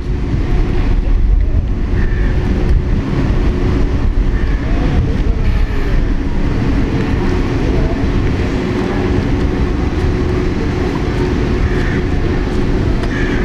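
Trolleybus at a stop giving out a steady electrical hum over street noise, with a strong, steady low rumble underneath.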